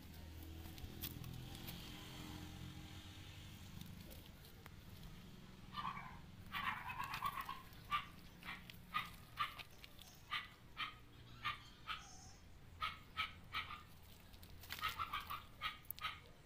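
A dog barking repeatedly, about two short barks a second, starting about six seconds in, over a low steady hum.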